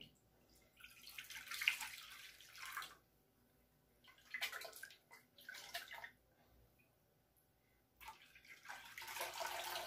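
Liquid lime gelatin poured from a glass pitcher into a glass dish: a faint splashing pour that comes in several stretches with short pauses between them.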